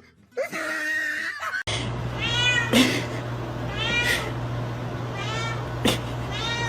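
A domestic cat meowing over and over, a string of short rising-and-falling meows about one a second, over a steady low hum with a few sharp knocks.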